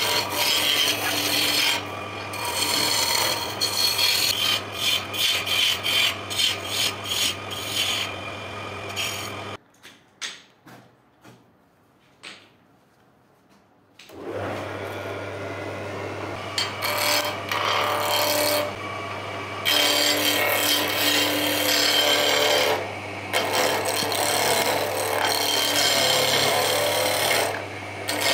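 Wood lathe running with a steady hum while a turning gouge cuts the spinning wood cylinder, scraping and shaving in uneven strokes. About ten seconds in, everything drops to near silence for about four seconds, with a few faint knocks, then the hum and cutting start again.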